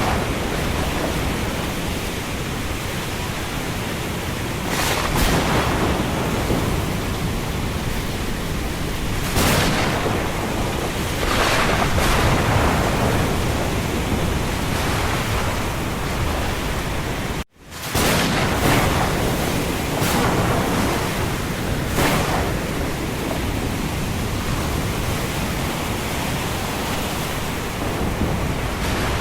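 Thunderstorm: a steady loud rush of rain and wind, broken several times by short sharp cracks of thunder. There is a split-second cut to silence about two-thirds of the way through.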